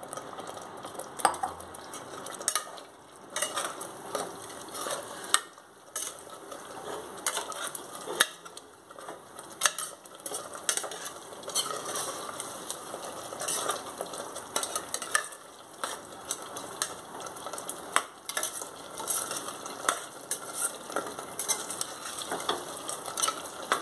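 Mutton stirred into masala frying in oil in a pressure cooker: a perforated steel spoon scrapes and clinks against the pot over a steady sizzle, with the clinks coming every second or so.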